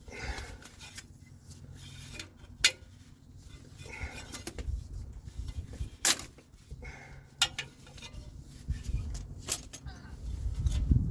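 Scattered sharp metallic clinks and knocks, the loudest four spread a second or two apart, over low rumbling handling noise.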